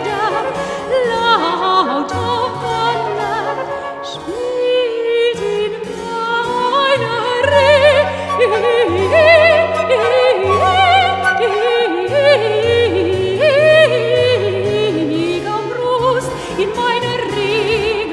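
Baroque chamber music: a transverse flute and a baroque violin play interweaving melodies with vibrato over a harpsichord continuo with a steady stepping bass.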